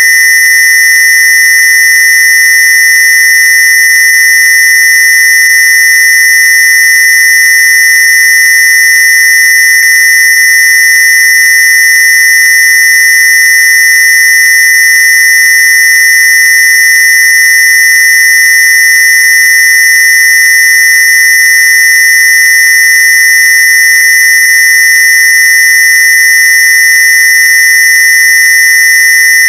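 Synthesized square-wave tone played as a Rife frequency: one loud, high-pitched, buzzy electronic tone held perfectly steady without a break.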